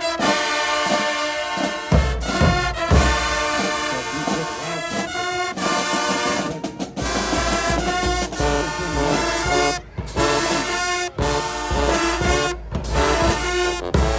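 Marching band brass (trumpets and trombones) playing a loud, upbeat tune over drums, with a heavy low bass coming in about two seconds in.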